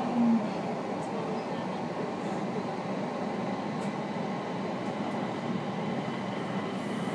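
Inside an IGR 7000-series (701-series) electric train picking up speed: steady running noise of the wheels on the rails with a low, steady hum. A brief louder tone sounds right at the start.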